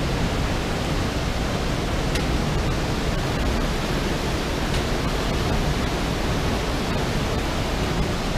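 Creek water rushing steadily over a small cascade into a pool, an even, continuous hiss.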